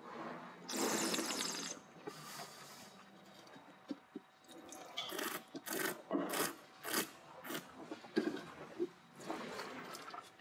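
A wine taster slurping white wine, drawing air through it in the mouth with a rippling hiss about a second in. A string of short hissing slurps and sniffs follows in the second half.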